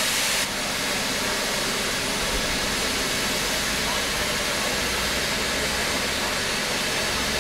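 Standing steam locomotive blowing off steam from its safety valve: a loud, steady hiss that eases slightly about half a second in.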